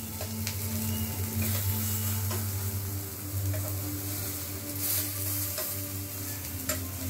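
Eggplant slices sizzling as they shallow-fry in oil in a nonstick frying pan. A spatula and tongs click and scrape against the pan every second or so as the slices are turned over.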